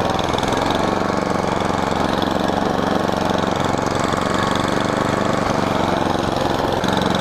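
Toro snowblower's gasoline engine running steadily at an even pitch while the machine is pushed through deep snow.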